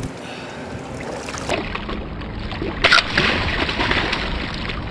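Freshwater drum thrashing at the surface beside a boat while held on a fish gripper, splashing water; the loudest splash comes about three seconds in.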